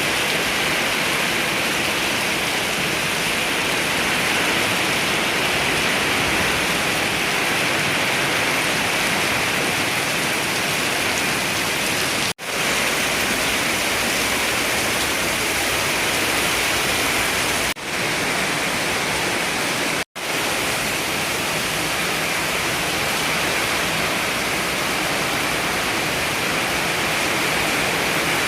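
Heavy rain pouring down in a steady, dense hiss, broken by three very short gaps that sound like cuts.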